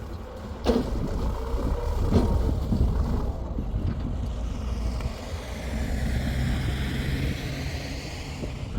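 Heavy machinery running with a steady low rumble, struck by a sharp knock under a second in and another about a second and a half later; in the second half a whine falls and then rises in pitch.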